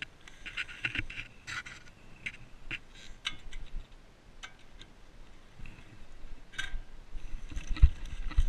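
Handling noise of a covered camera: scattered clicks, rubs and scrapes, then two heavy thumps near the end.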